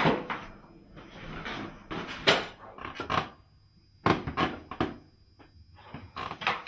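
A string of separate knocks and clatters, the sharpest about two seconds in and three more in quick succession around four seconds in.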